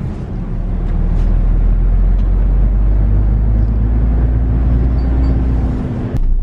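Diesel engine of a MAN semi-truck running steadily under way, heard from inside the cab as a continuous low drone with road noise. Its tone edges slightly upward through the middle, and the sound drops away suddenly about six seconds in.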